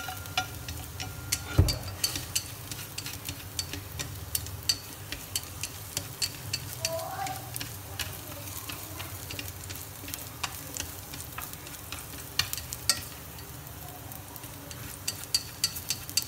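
Minced garlic sizzling gently in oil in a stainless steel pot while wooden chopsticks stir it, with frequent sharp clicks as the chopsticks tap and scrape the pot. One heavier knock about one and a half seconds in.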